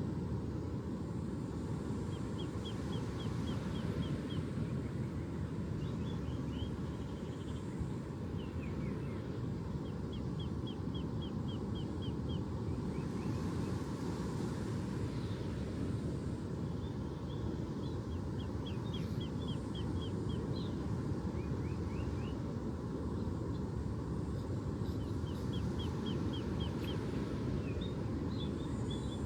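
Steady low rush of ocean surf, with a small bird singing a short, rapid trill of quick high notes, repeated several times at intervals of a few seconds.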